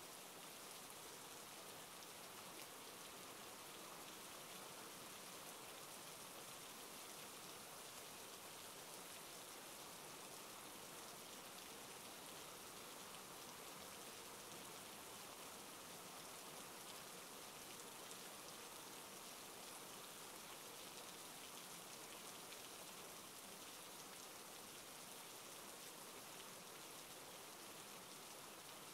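Steady rainfall: a faint, even hiss of rain on a surface, unchanging throughout.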